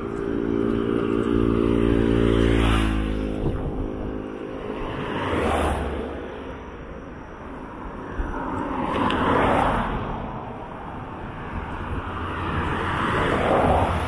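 Road traffic passing close by. For the first few seconds an engine hums steadily, then drops in pitch as it goes past about three seconds in. After that, three more vehicles whoosh by about four seconds apart, each one swelling and fading away.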